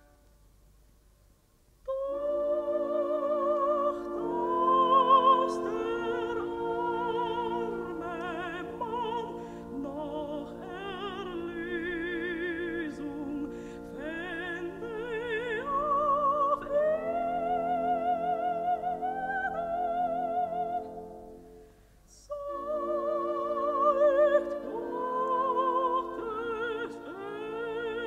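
Operatic dramatic soprano singing with a wide vibrato over an orchestra. She enters suddenly after about two seconds of near silence, breaks off briefly about three-quarters of the way through, then resumes.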